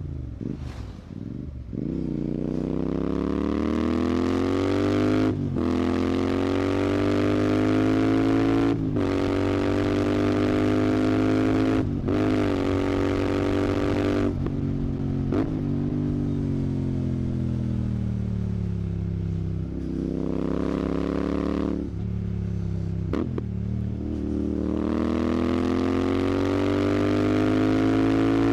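Royal Enfield Continental GT 650's 648 cc parallel-twin engine through a Red Rooster aftermarket exhaust, pulling under throttle on the ride. Brief sharp breaks every few seconds fit gear changes. The revs fall away around the middle and climb again near the end.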